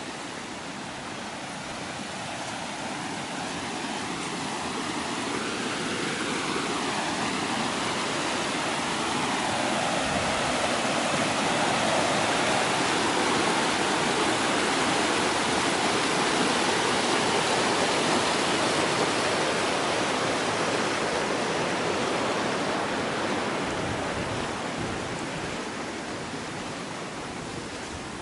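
A river rushing over shallow, rocky rapids: a steady, even roar of white water that grows louder towards the middle and fades again near the end.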